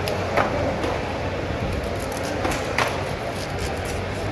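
Steady background din with a low hum, broken by a few short sharp clicks or taps.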